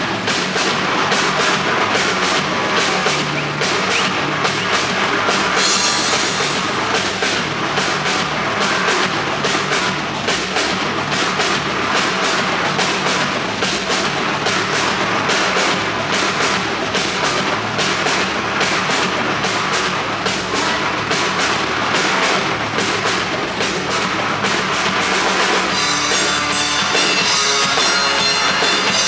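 Loud rock-style music driven by a steady drum-kit beat.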